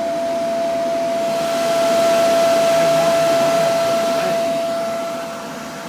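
Power Jack inverter's cooling fan running steadily: a constant whine over rushing air, which swells a second or so in and eases off near the end. The fan has stayed on for hours though the inverter is not hot to the touch, a behaviour the owner cannot explain.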